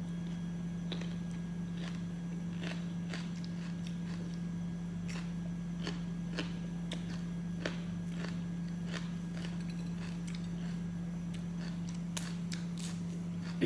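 Green bell pepper being torn and broken apart by hand: scattered crisp snapping clicks, more of them near the end, over a steady low hum.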